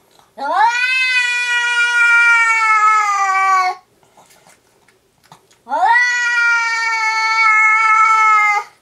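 Domestic cat yowling: two long, loud threatening yowls, each about three seconds, sweeping sharply up in pitch at the start and then held, with a pause of about two seconds between them. It is the agitated caterwaul of a cat still fixed on its target and ready to attack again.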